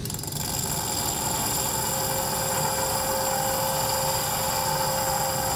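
Bottom of a blown-glass cup pressed against a wet, spinning metal spherical grinding wheel on a Mercer lathe, grinding away a punty mark: a steady grinding noise with a high ringing whine that sets in the moment the glass meets the wheel.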